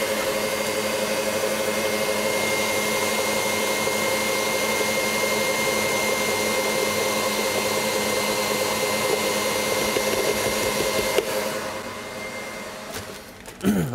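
KitchenAid Heavy Duty stand mixer running at speed, its wire whisk beating meringue in a steel bowl, with a steady motor whine. It fades and dies away near the end as the meringue reaches a thick, whipped stage.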